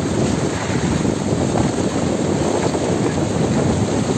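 A mass of small tuna (tulingan) thrashing and splashing in a fishing net at the surface, a dense, steady, crackling patter of water.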